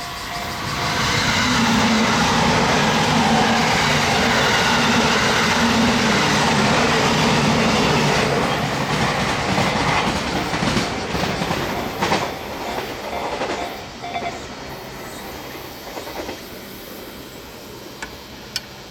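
Train passing over a level crossing: a loud rush of wheels and cars for about seven seconds, then fading, with a few sharp wheel clacks over rail joints as it goes.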